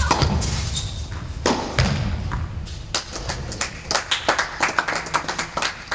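Tennis ball struck by racquets and thudding on an indoor court as a rally ends, with sharp hits at the start and about a second and a half in. Then a run of quick sharp taps.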